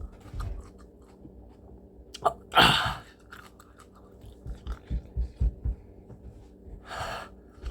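A man chewing a mouthful of tough, rubbery habanero peppers with faint wet clicks and soft low thuds. Two loud, sharp breaths are pushed out against the heat, one a little over two seconds in and one near the end.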